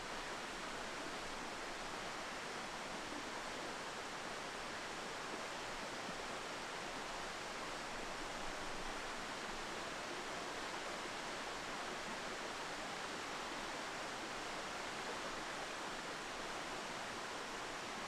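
Steady, even rush of water falling from a 40-metre waterfall.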